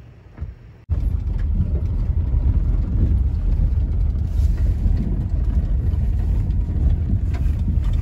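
Steady low rumble of a car driving along a dirt farm road, heard from inside the cabin. It starts abruptly about a second in, after a moment of quiet.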